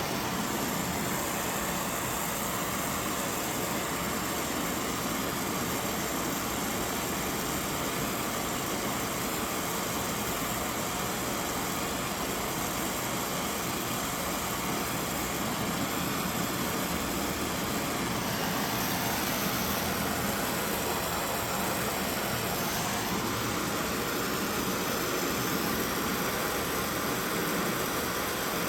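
Steady rushing noise from equipment running, spread evenly from low to high pitch without clear strokes or tones, shifting slightly in character twice in the second half.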